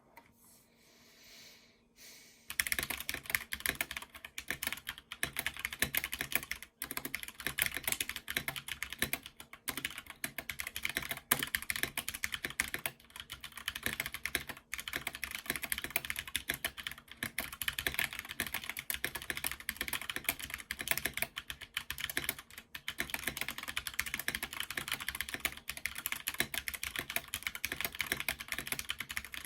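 Fast, continuous typing on a Snowfox DK61 60% mechanical keyboard with Holy Panda tactile switches, a dense run of key clacks that starts about two and a half seconds in.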